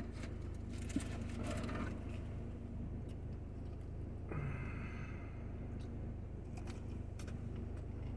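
Eating and handling food during a mukbang: a sharp click about a second in and two short spells of rustling, over a steady low hum.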